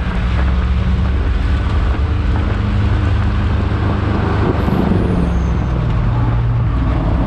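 Roadster race car's engine running at speed on track, with steady wind and road noise around it. The engine note steps up and down in pitch a few times.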